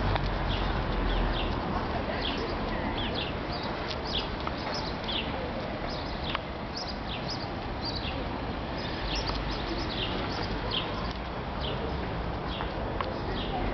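Small birds chirping in short, high, slightly falling notes, a few every second, over a steady low outdoor rumble.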